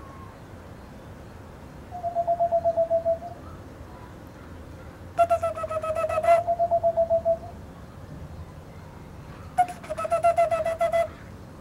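Whiskered screech owl trills, played from an iPhone recording and copied on a handmade ceramic owl whistle. There are three runs of quick hoots on one pitch, about ten notes a second. The middle run is the longest, with a rougher part running straight into a cleaner part.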